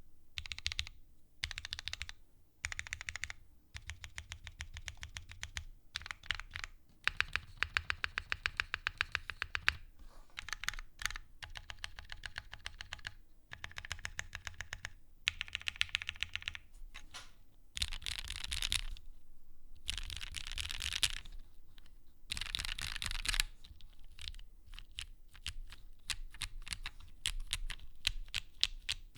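Typing on a mechanical keyboard with lubed and filmed vintage Cherry MX Black linear switches, mounted on an aluminium half plate with GMK keycaps. The keystrokes come in fast runs with short pauses, and a few runs in the second half are louder and brighter.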